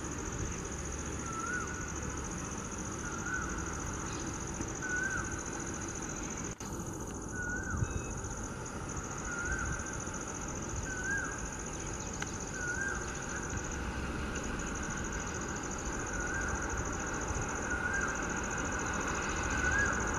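A cuckoo chirping over and over: a short hooked call repeated about every one and a half to two seconds, about a dozen times, over a steady high-pitched drone.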